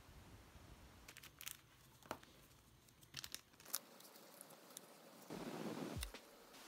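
Faint handling sounds of a cardboard album box and plastic-sleeved merch: scattered light clicks and taps, then a short papery rustle about five seconds in as the album is opened.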